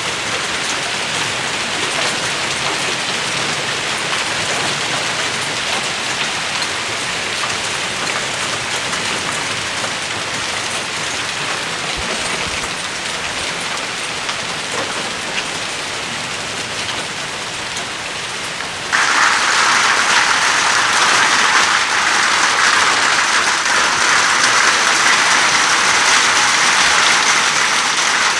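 Heavy hail and rain pelting down in a steady dense hiss. About two-thirds of the way through it cuts abruptly to a louder, harsher clatter.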